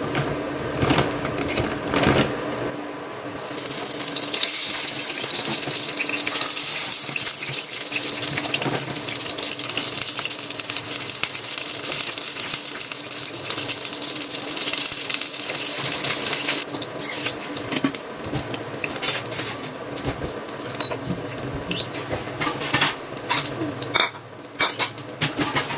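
Chicken nuggets frying in hot oil in a nonstick pan: a steady sizzling hiss that turns loud a few seconds in as the nuggets go into the oil, then eases about two-thirds of the way through. Scattered clicks and knocks come from handling at the pan.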